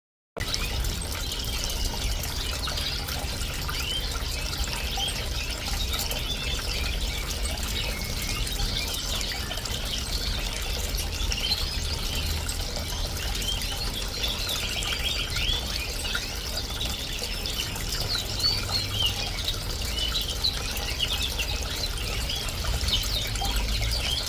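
Bird-bath fountain trickling and splashing steadily, with canaries and finches chirping and singing throughout in many short, high calls.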